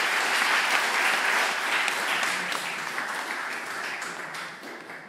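Audience applauding at the end of a talk: many hands clapping together, dying away over the last couple of seconds.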